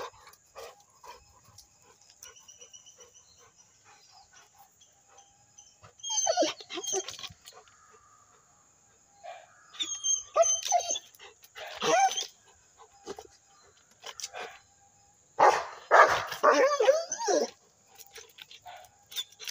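Rottweiler barking and whining in several separate bursts with quiet gaps between, the longest and loudest, about two seconds, coming late.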